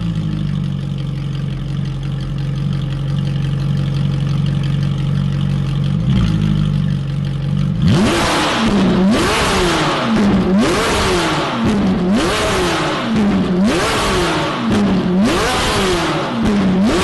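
Ferrari 458's 4.5-litre V8 idling steadily through catless test pipes, with one short blip about six seconds in. From about eight seconds on it is revved repeatedly: about seven sharp rev-and-drops, roughly one every second and a half.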